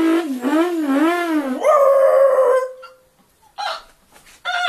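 A person making a vocal sound effect: a howling wail whose pitch swings up and down about twice a second, then jumps to a higher held note that fades out. Two short vocal sounds follow near the end.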